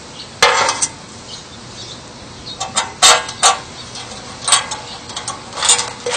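Impact driver run in several short bursts, driving screws through the ladder rails into the log with a clattering rattle, stopping and starting so the screws go in only lightly.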